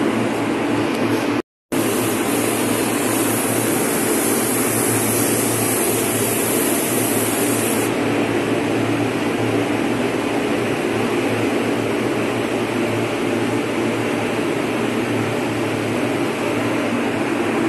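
A motor-driven machine running steadily, a constant hum with a rush of air over it. The sound cuts out for a moment about a second and a half in, and a brighter hiss sits on top until about eight seconds in.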